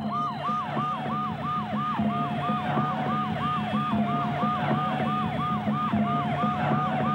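Electronic siren-like alarm: a quick falling chirp repeating about three times a second over a steady held tone and a low hum.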